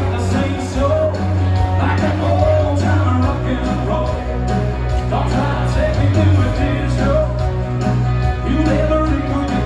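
Recorded song with singing over a strong, steady bass line.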